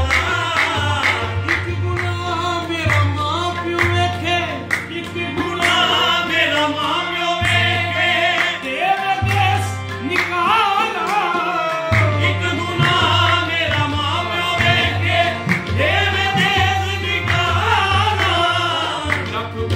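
Qawwali of Punjabi Sufi verse: a lead singer with accompanying voices, over two harmoniums and tabla. The singing is ornamented and wavering over a steady harmonium drone.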